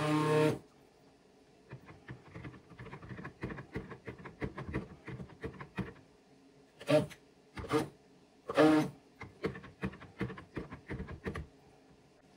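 Stick blender's metal head worked around by hand in a plastic pitcher of hot lye solution and soap oils, melting the hard butters (heat transfer method): irregular clicks and knocks against the pitcher, with a few brief louder bursts about seven to nine seconds in.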